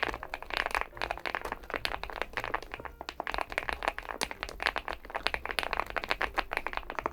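Rapid typing on a Weikav Stars80 aluminium gasket-mount TKL mechanical keyboard: a dense, continuous run of keystroke clacks, several a second.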